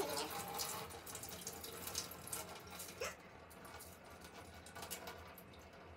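Kitchen tap water running into a pot of rice in a stainless steel sink as the rice is washed by hand. The water sound drops off about three seconds in.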